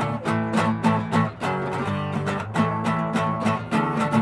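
Two acoustic guitars playing an instrumental passage together: chords strummed and plucked in a steady, quick rhythm of several strokes a second.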